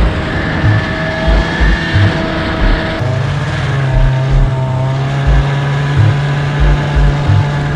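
1997 Arctic Cat EXT snowmobile's two-stroke engine running under the rider, with irregular low thumps throughout. About three seconds in, the engine note changes and then holds steady as the sled eases towards the road.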